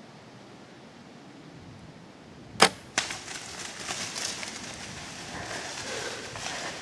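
A bow shot at a whitetail deer: one loud sharp crack of the bow firing, then a second, fainter crack less than half a second later as the arrow strikes. Rustling and crashing through leaves and brush follows as the deer bolts.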